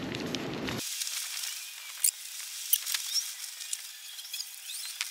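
A plastic grease packet crinkling as it is squeezed out into a CV joint housing, with soft squelching of the grease and a few sharp clicks, the clearest about two seconds in.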